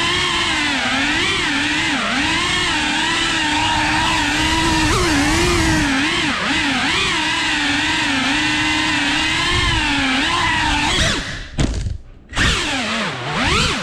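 FPV quadcopter's brushless motors and propellers whining, recorded on board, the pitch wavering up and down constantly as the throttle changes. Near the end the throttle is cut for about a second, the whine falling almost away before it spools back up.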